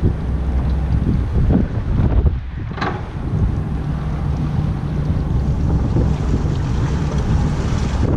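Wind buffeting the microphone over the steady low running of an idling Yamaha 250 outboard motor, with one short sharp sound about three seconds in.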